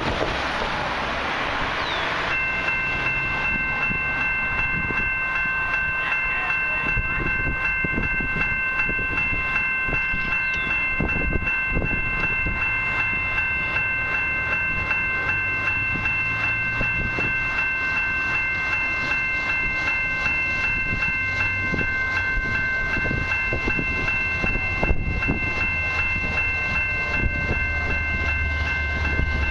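Railway level-crossing warning bell starts about two seconds in and rings steadily with fast, even strikes, the crossing warning for an approaching train. Wind on the microphone at the start, and the low rumble of the approaching freight train grows near the end.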